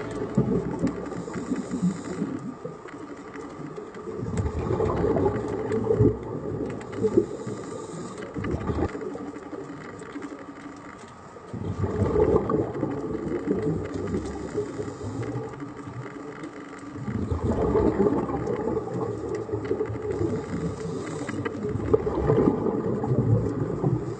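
Underwater sound of scuba divers breathing through their regulators: bubbling rumbles of exhaled air that swell and fade every five or six seconds, with short hisses between them.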